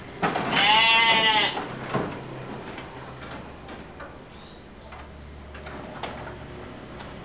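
A sheep bleating once, a loud quavering bleat lasting about a second, followed by a few faint knocks.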